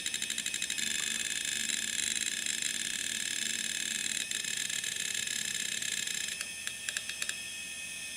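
Old Samsung 2 GB hard drive (WN321620A) working during a file transfer: a rapid pulsing chatter that gives way about a second in to a steady high-pitched whine, then a handful of clicks near the end.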